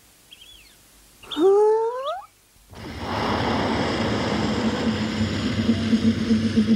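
A short swooping cartoon sound effect with bending pitch, about a second and a half in. Then, from about three seconds, a cartoon vehicle's engine starts running steadily with a rough, pulsing rumble that swells toward the end as the orange van-like vehicle comes over the hill trailing smoke.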